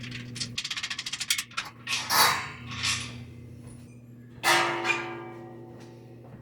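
Metal tools and parts being handled during an air compressor teardown: a fast run of clicks, two knocks, then a loud metallic clang about four and a half seconds in that rings and fades.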